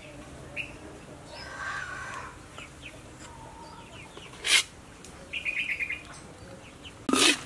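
Birds chirping and giving a short quick trill in the background, with one sharp metallic clink about four and a half seconds in. Near the end a metal utensil starts clattering and scraping loudly against the wok.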